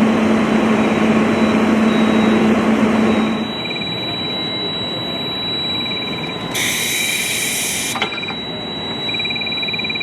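A loud engine runs steadily for about three seconds, then stops or fades. What remains is a steady high electronic tone and short bursts of rapid pulsed beeping, typical of an alarm, with a sharp burst of hiss lasting about a second near the middle.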